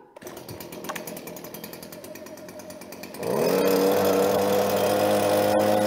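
A motorised garden power tool is switched on and runs steadily at low speed. About three seconds in it is throttled up to full speed, rising in pitch to a loud steady drone, then eases off near the end.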